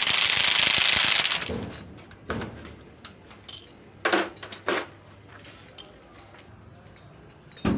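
A loud hissing noise for about a second and a half, then scattered sharp metallic clanks and knocks of tools and parts being handled in a truck repair workshop.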